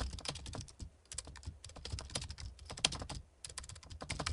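Rapid computer keyboard typing clicks, with a few brief pauses.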